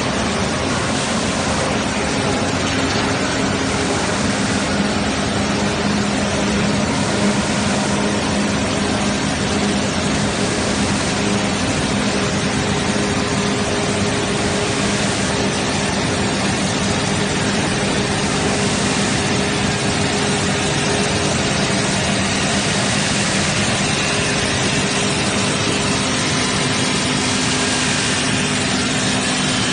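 Stainless steel tube mill running, with steel strip passing through its forming rolls: a loud, steady machinery noise with a constant low hum underneath.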